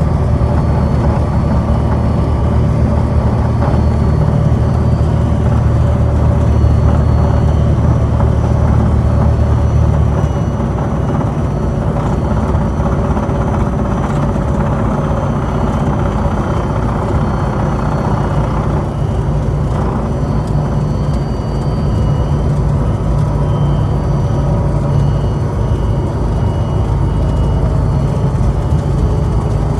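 Steady engine and propeller drone of a small single-engine propeller plane in flight. The low hum changes about ten seconds in.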